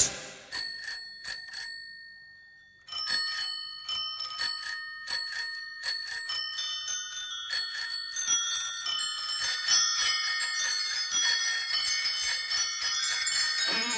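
Bells ringing, each strike leaving a clear, lasting tone: a few separate rings in the first two seconds, a short pause, then a quickening, overlapping run of rings at many pitches that builds toward the end.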